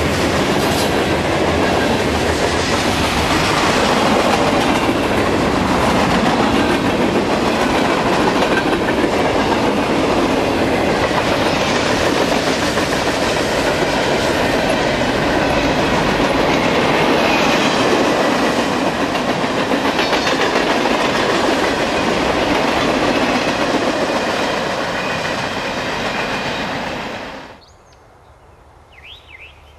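Freight cars (covered hoppers and gondolas) rolling past close by: a steady roar of steel wheels on rail with the clickety-clack of wheels over rail joints. About 27 seconds in, the sound cuts off abruptly to a quiet outdoor background with a few faint chirps.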